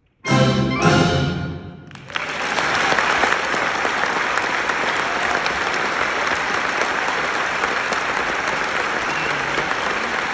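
Solo clarinet and symphony orchestra end the piece on two short, loud closing chords that ring out and fade. About two seconds in, the audience bursts into steady applause.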